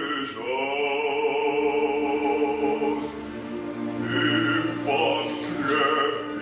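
Male opera singer singing an aria in long held notes over a string orchestra, with brief breaks between phrases about half a second and five seconds in.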